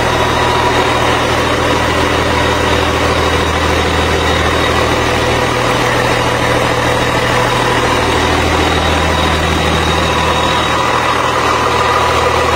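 A large engine idling steadily, with a faint high whine over it.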